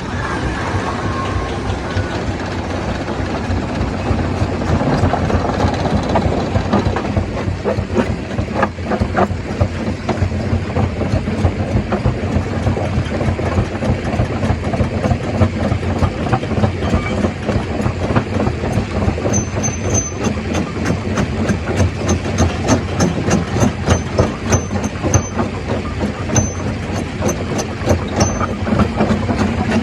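Stone crusher running and crushing rock: a steady low drone under a dense, rapid clatter of stone being broken, the knocking growing sharper in the second half.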